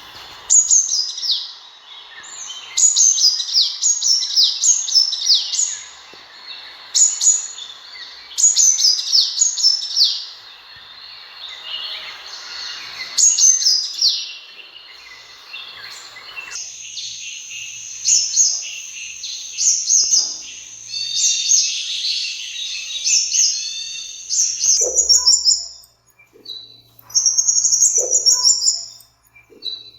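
Sunbird calls: runs of high, thin chirps that each slur quickly downward, delivered in bursts of several notes. About halfway through, the recording changes abruptly to a steadier high, buzzy trill, and near the end to short high phrases with gaps between them.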